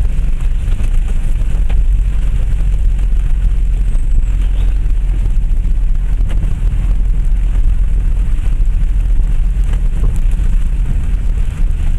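Cabin noise of a Land Rover Freelander 1 TD4 crawling along a rough, rutted dirt lane: the diesel engine running low and steady under a deep rumble, with a few faint knocks from the body and suspension over the bumps.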